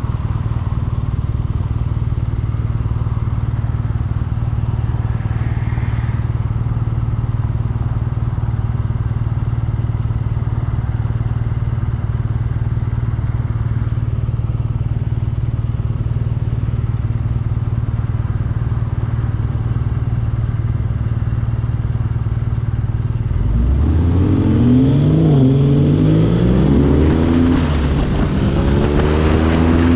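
BMW R nineT Urban G/S's 1170 cc boxer twin running steadily, then accelerating with the revs climbing and dropping several times through gear changes in the last several seconds.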